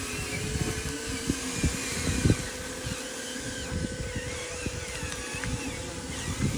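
Small electric motor of a radio-controlled model whining at a steady pitch, with low rumbling and irregular knocks underneath; the loudest knock comes a little after two seconds in.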